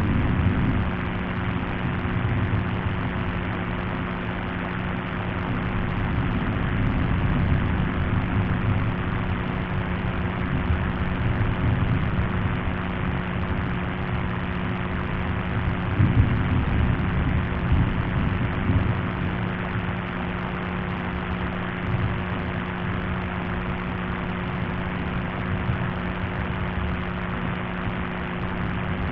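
Steady low hum: one constant tone with a fainter tone about an octave above, over a dense rumbling noise that swells a little now and then. It is offered as a 'humbuzz' anomaly recorded on the ocean floor.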